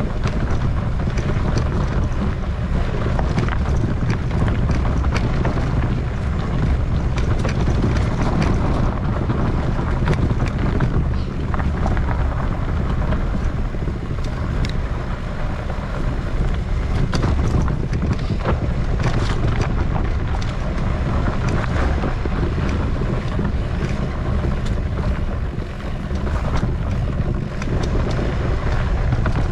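Wind buffeting the microphone of a camera riding on a mountain bike, a steady low rumble, with frequent knocks and clicks from the bike jolting along the rough trail.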